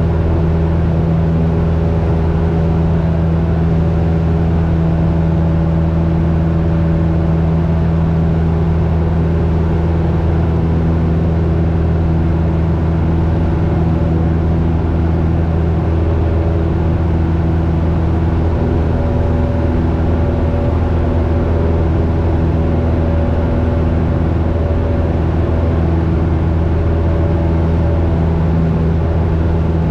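Cessna 172's piston engine and propeller running steadily in flight, heard from inside the cabin. The engine note holds one pitch throughout, with no change in power.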